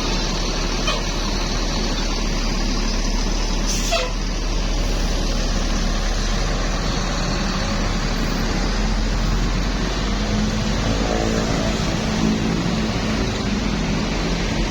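Road traffic going by close at hand: a steady rush of engine and tyre noise with a deep rumble. There is a short sharp sound about four seconds in, and a passing vehicle's engine hum stands out from about ten to thirteen seconds in.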